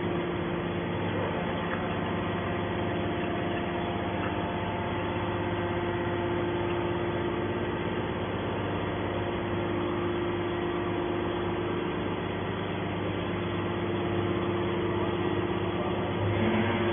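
Hydraulic scrap metal baler's power unit running steadily, an even mechanical hum with a constant tone.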